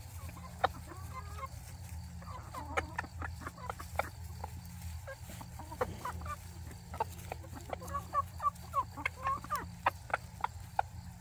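A flock of cheonggye (Araucana-type) chickens clucking softly while they feed on bread, with scattered short clicks and taps from pecking; the clucking grows busier in the second half.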